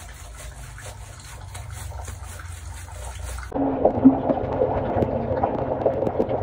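A husky's wet, soapy fur being rubbed and scrubbed, a soft wet rubbing that turns louder and more muffled about three and a half seconds in.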